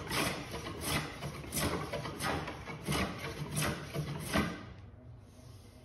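A hand tool working the edge of an ash tiller blank in repeated strokes, about three every two seconds, that stop about four and a half seconds in.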